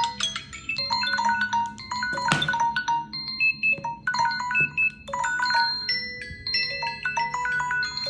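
Several smartphone alarm tones (Samsung, Alcatel, iPhone, Lenovo, Xiaomi) ringing at the same time, their chiming, marimba-like melodies overlapping into a jumble. A short knock sounds about two seconds in.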